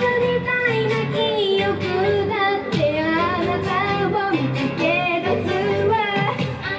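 Female idol group singing a pop song live, with high young voices carrying the melody over pop backing music.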